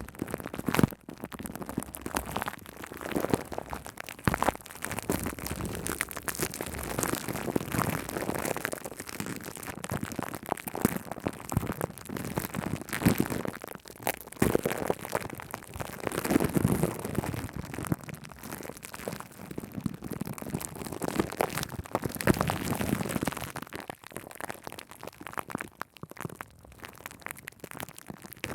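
Shaving cream foam squished and rubbed directly on a microphone: a close, dense crackle of popping bubbles and wet rubbing that swells louder several times.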